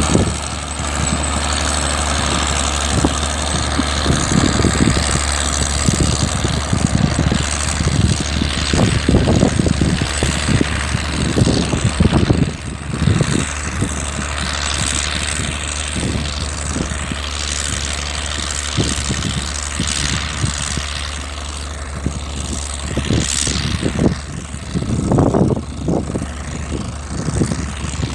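Tractor engine running steadily with a low hum, with irregular louder low rumbles over it.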